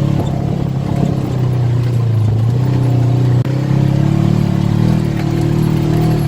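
ATV engine running steadily, its pitch rising a little about halfway through as it speeds up.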